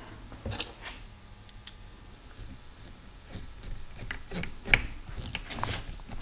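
Small screw being driven by hand with a screwdriver into a monopod pole held in a bench vise: scattered light clicks and scrapes of the screwdriver and screw, busier in the second half, with one sharper click a little past the middle.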